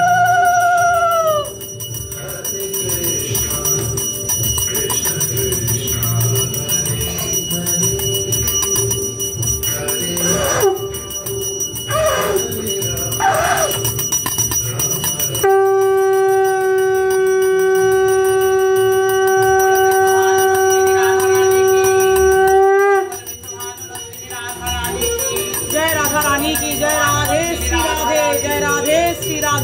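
A conch shell (shankha) blown in long steady notes during a puja. One note falls away about a second and a half in, and a second is held from about halfway to three-quarters through. Under them a bell rings steadily, and fast-wavering voices come in near the end.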